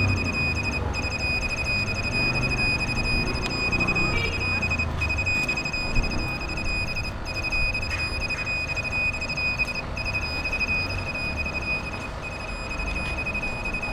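Handheld satellite finder meter beeping: a rapid, continuous high-pitched pulsing tone over a low rumble. The tone signals that the meter has locked onto the DSTV satellite signal.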